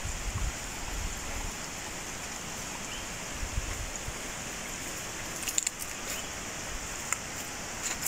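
Steady outdoor ambience: an even hiss with a faint high steady drone, a few faint clicks about five and a half seconds in, and a light low rumble now and then.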